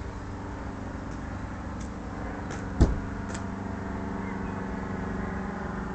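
A wooden plank door on a camp toilet hut shuts with one sharp knock about three seconds in, over a steady low hum.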